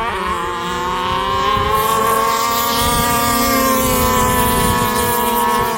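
Small two-stroke petrol engines of two large-scale RC cars (30.5cc and 38cc) at full throttle in a drag race. The engine pitch climbs in the first second, then holds high and steady.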